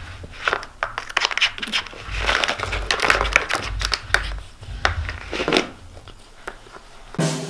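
A cat pawing and nosing at a Catit Senses play circuit: irregular crinkling and scraping from the corrugated cardboard scratch pad and the plastic ball track. Music starts near the end.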